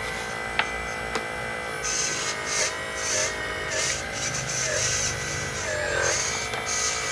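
Electric drive motor and gears of a 1/6-scale RC truck whining, the pitch dipping and coming back up several times as the throttle or load changes. Two sharp clicks come in the first second or so.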